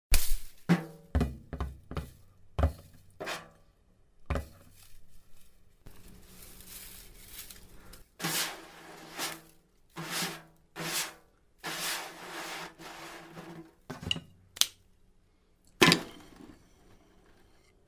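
Handled objects making sound effects: a quick run of knocks and thuds, then a series of rasping, rubbing bursts, each under a second, and one last sharp knock near the end.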